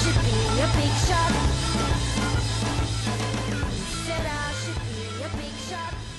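Rock music with drums and guitar, fading out.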